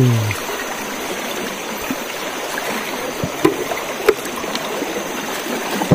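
River water flowing steadily, with a few soft clicks and rustles from hands picking fish out of a nylon cast net.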